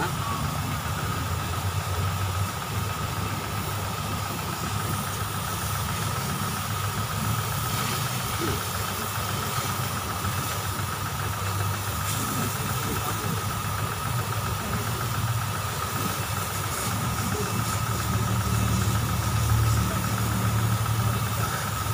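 Engine idling steadily: a low drone with a constant high whine above it, a little louder near the end.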